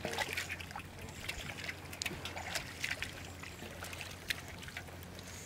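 Shallow water trickling and sloshing, with scattered small splashes and clicks, over a low steady hum.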